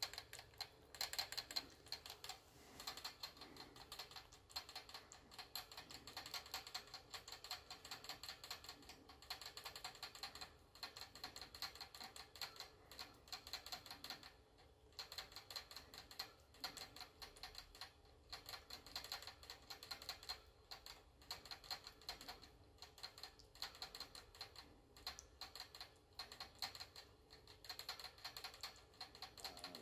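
Pet rat drinking from the metal sipper tube of a cage water bottle: fast, light clicking of tongue and teeth on the spout, in long runs with a few short breaks.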